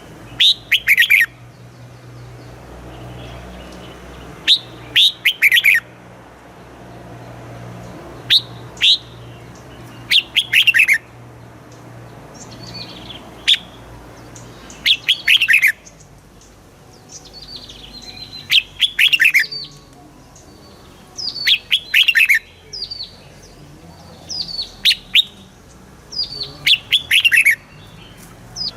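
Red-whiskered bulbul singing: short phrases of quick, falling whistled notes, repeated every couple of seconds.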